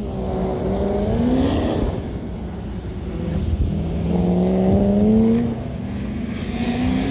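Engine of a 1968 Chevrolet C10 Stepside pickup running an autocross course: the revs climb and then drop three times as it accelerates out of turns and lifts. It is loudest about five seconds in.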